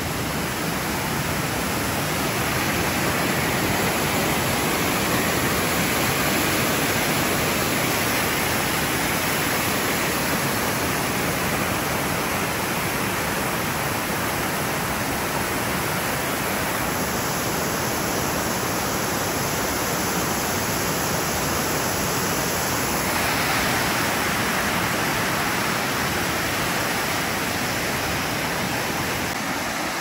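Waterfalls pouring down a cliff face: a steady, even rush of falling water.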